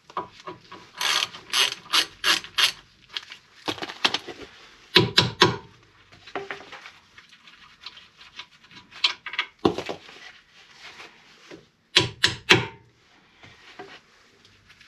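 Ratchet wrench clicking in short bursts of a few strokes each, with pauses between, as the lower ball joint nut on the steering knuckle is undone.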